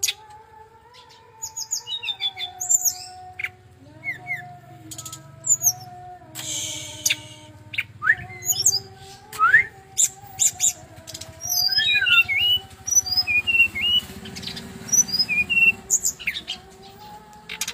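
Brown-chested jungle flycatcher singing a varied song of quick chirps and short up-and-down slurred whistles, in rapid runs with brief pauses, over a steady low hum.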